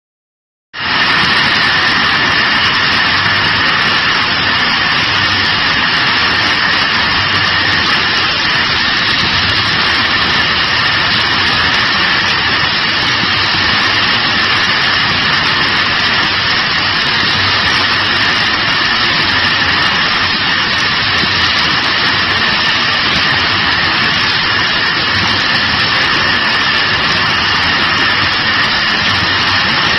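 Steady machine noise of an automatic carton divided feeder and packing line running: a constant loud whir with two steady high whines on top. It starts abruptly just under a second in.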